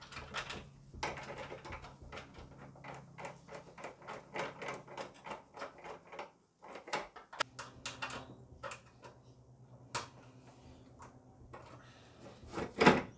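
Light metallic clicks, taps and clatter of hand tools and parts being handled while a brake bias valve on an aluminium bracket is fitted beside a hydraulic handbrake in a bare steel car floor, with louder knocks near the end. A steady low hum runs underneath and drops out briefly about halfway.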